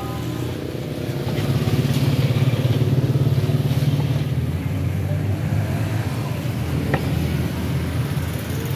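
A motor engine running steadily close by, a low, even rumble, with a couple of light sharp clicks near the end.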